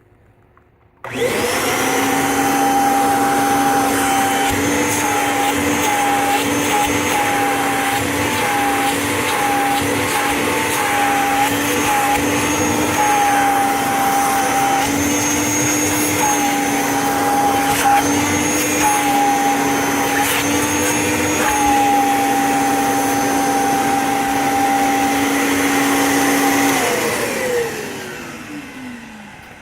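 Kirby G4 upright vacuum cleaner switched on, running with a steady motor whine that dips briefly in pitch now and then, then switched off near the end, the whine sliding down as the motor spins down.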